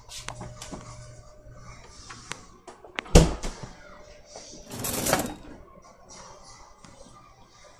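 A refrigerator door thuds shut about three seconds in. A couple of seconds later a kitchen cutlery drawer slides open with a short scraping noise.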